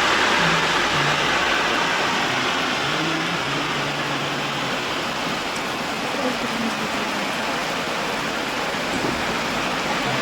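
Steady rain with the hiss of car tyres on the wet road and a faint engine hum, slowly fading as the car moves away.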